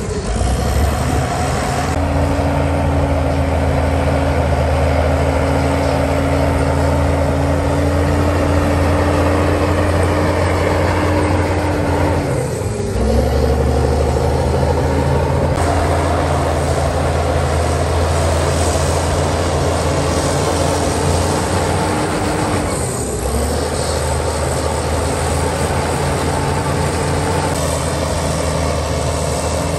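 Heavy diesel engine of earthmoving equipment running steadily under load, with a steady whine over it. The sound breaks off and picks up again twice.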